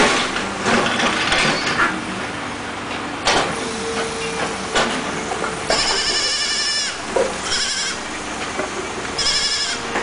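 Kid goat bleating three times in the second half, high and quavering, the first call the longest. Knocks and clatter come earlier.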